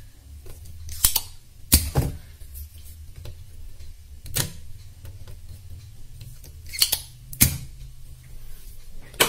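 Scattered sharp clicks and taps, about seven in all, of meter probes and small tools touching a TV circuit board, over a low steady hum.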